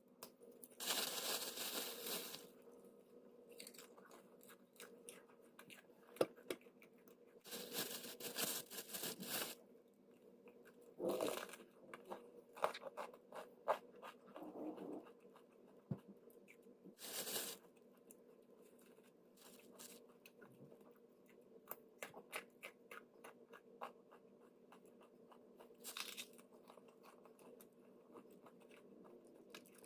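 Faint household handling sounds: scattered clicks and taps with several short bursts of rustling or crunching, over a faint steady hum.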